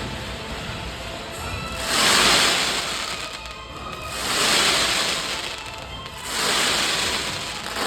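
Aerial fireworks bursting overhead, heard as three long hissing swells of about two seconds each, starting about two, four and six seconds in.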